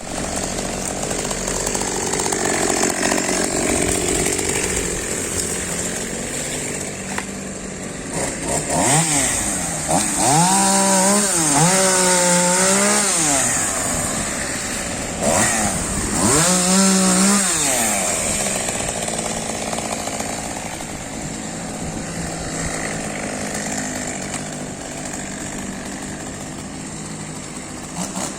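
Two-stroke chainsaw running, revved up and down in surges a few times around the middle, as when cutting through wood such as a fallen tree.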